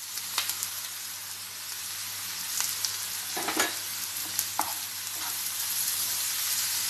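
Chopped onions, tomatoes and green chillies sizzling steadily in hot oil in a frying pan, with a few light clicks of a spoon and a wooden spatula against the pan as red chilli powder is added and stirred in.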